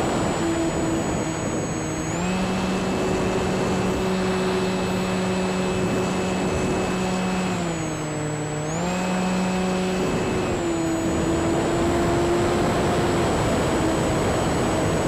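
E-flite Sukhoi RC plane's electric motor and propeller running in flight, a steady buzzing drone with a high thin whine over it. The pitch steps up about two seconds in, dips briefly around eight seconds and settles lower near ten seconds as the throttle changes.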